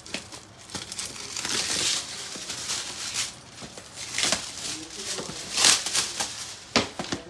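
Shiny gift-wrapping paper crinkling and tearing as a present is unwrapped by hand, in several irregular bursts, the loudest a little before the end.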